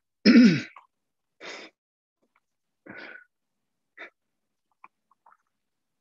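A person's short, loud vocal burst whose pitch falls, followed by a few softer breath sounds and small clicks over a video-call connection, each cut off sharply.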